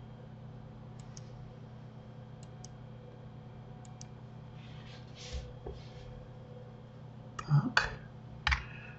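Computer mouse clicks, soft and mostly in quick pairs, over a steady low electrical hum. Near the end come a few louder sharp clicks with a brief low vocal sound.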